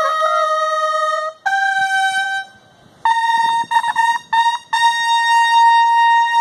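A solo brass horn sounding a military bugle call. Two held notes climb in steps, then after a short pause the top note comes in, repeated quickly several times, and is then held long.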